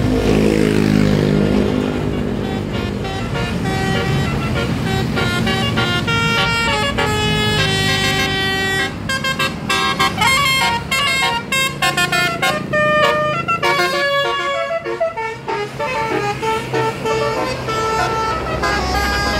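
Bus telolet horn, a multi-tone electric horn set playing a quick, shifting tune of held and short notes, over a low bus engine rumble.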